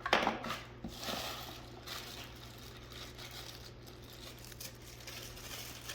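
Faint rustling and a few light clicks of plastic accessories and their packaging being handled, over a low steady hum.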